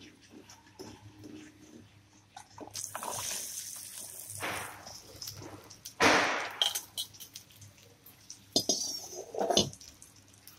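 Spatula stirring spices in hot oil in a metal pan, with a sizzle a few seconds in. About six seconds in, chopped par-boiled amla (Indian gooseberry) pieces land in the pan with a loud clatter. After that, the spatula scrapes and turns them over in short knocks.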